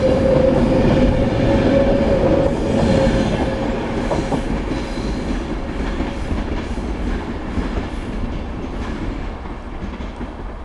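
Class 390 Pendolino electric train departing, its last coaches running past and the rumble of the wheels fading as it leaves. A steady whine runs through the first half and dies away about six seconds in.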